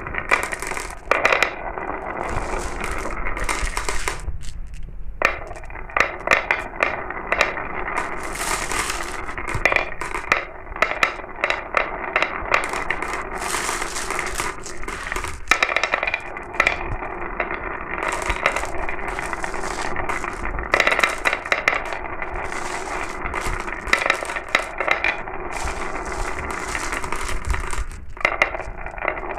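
Glass marbles rolling and clattering down a marble run: a continuous rattle of rolling with many sharp clicks as the marbles strike each other and the track. The clatter thins out briefly about four seconds in and again near the end.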